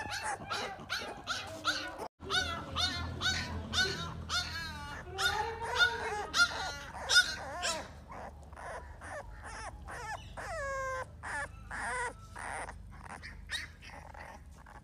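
American Bully puppy whining and yelping in a rapid string of short high-pitched cries, several a second, thinning out after about eight seconds, with one long falling whine near the middle.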